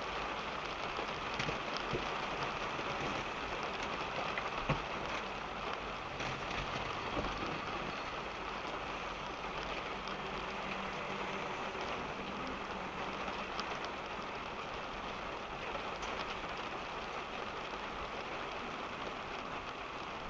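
Steady rain falling on a car's roof and windscreen, heard from inside the cabin, with scattered single drops ticking and a low rumble beneath from the moving car.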